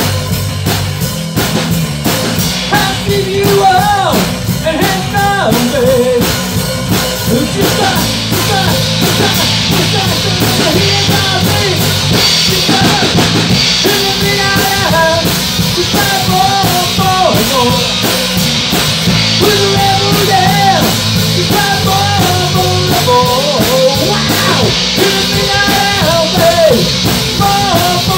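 Live rock band playing: drum kit and electric guitars, with a bending melodic line over a steady low end.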